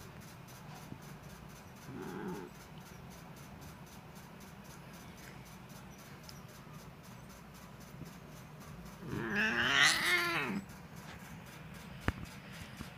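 Pet cat giving one loud, drawn-out, wavering meow about nine seconds in, after a faint short call around two seconds in, while being held on its back and petted.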